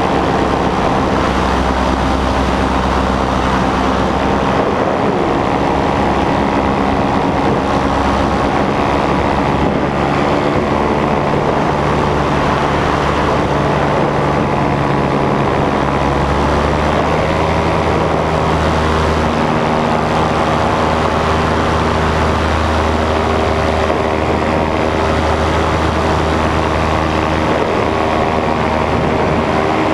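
Nitro 200 paramotor's two-stroke engine and propeller running steadily in flight, with wind rushing past. The engine note shifts slightly in pitch about halfway through as the throttle changes.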